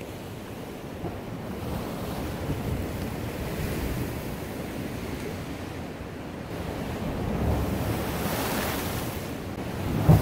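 Ocean surf breaking and washing over shoreline rocks, with wind buffeting the microphone. The surf swells louder in the second half, and a sharp thump near the end is the loudest moment.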